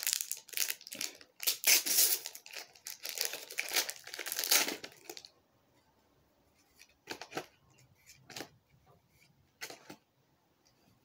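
A foil trading-card packet being torn open and crinkled for about five seconds. Then it goes quiet apart from a few short rustles and clicks as the cards are handled.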